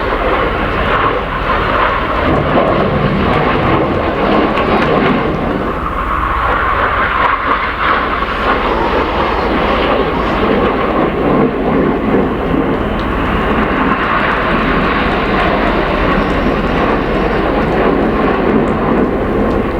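Jet noise from BAE Hawk T1 display jets flying the air-show routine: a steady rushing noise that swells several times as the aircraft pass.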